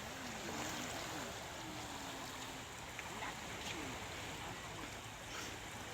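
Steady wash of sea water at the Red Sea shore, with faint distant voices.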